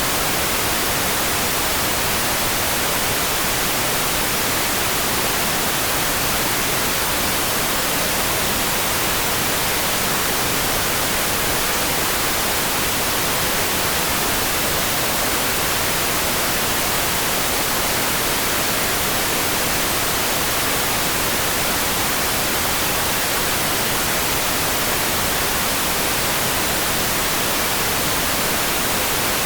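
Steady sleep-sound rain: an even, bright hiss with no separate drops or thunder, close to white noise.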